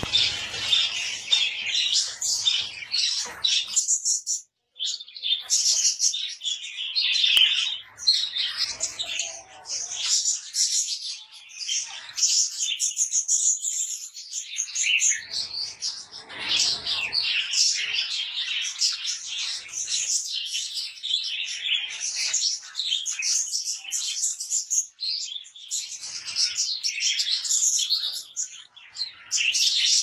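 Fallow king budgerigars chattering and warbling without a break, a dense run of high chirps and squawks. The sound drops out briefly about four and a half seconds in.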